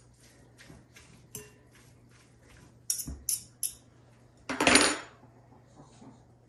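Metal forks clinking and scraping in a pot of shredded pork roast: a run of light taps, three sharper clinks about three seconds in, then a louder clatter about a second later.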